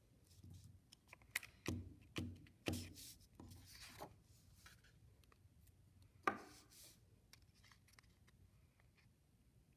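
Paper collage being glued on a tabletop: a glue stick rubbing on paper and sheets of paper being lifted and set down, with a few taps and knocks and some scratchy rubbing between about one and four seconds in, then one sharp click a little after six seconds in.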